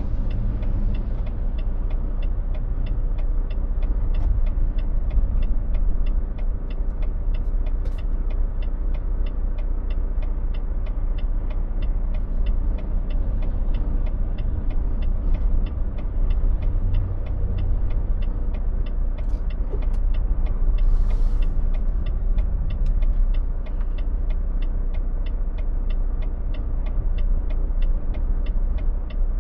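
Semi-truck's diesel engine idling, heard from inside the cab, with the turn signal ticking steadily about three times a second. A short hiss of air comes about two-thirds of the way through.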